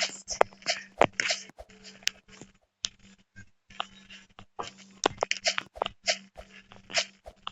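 Irregular crunching and sharp clicks close to the microphone, with a short quieter gap near the middle, over a steady low hum.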